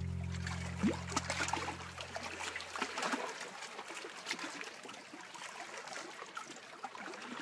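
Small waves lapping and trickling among shoreline boulders, an irregular crackle of little splashes. The last sustained chord of a song fades out over the first few seconds.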